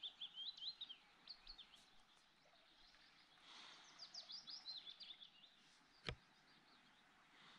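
A small songbird singing faintly, two quick phrases of high chirps that each fall in pitch, with a single sharp click about six seconds in.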